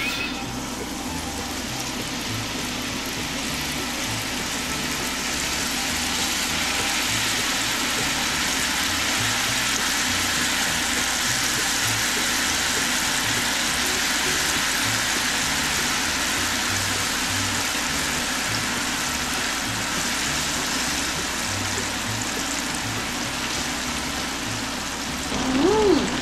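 Banana slices sizzling in hot olive oil in a small frying pan. It is a steady hiss of frying that grows louder a few seconds in and eases near the end.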